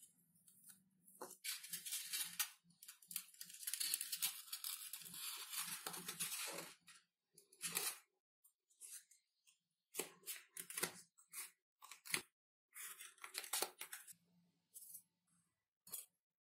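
Tearing and scraping noises of hand work on the model's materials: one long stretch of several seconds, then a string of short strokes, with a faint low hum in between.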